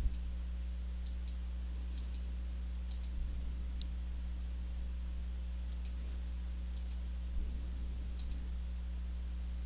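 Computer mouse button clicks, many in quick press-and-release pairs, about one a second, pausing for a couple of seconds midway, over a steady low electrical hum.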